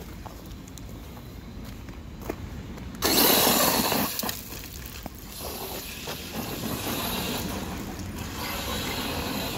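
Redcat Volcano EPX RC truck driving hard on gravel and dirt: a sudden loud burst of tyres scrabbling and spraying gravel about three seconds in, lasting about a second, then fainter running noise as it drives on.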